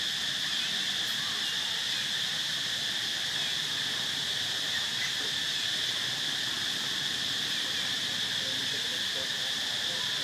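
Steady chorus of insects: an even, high-pitched drone that does not break or change.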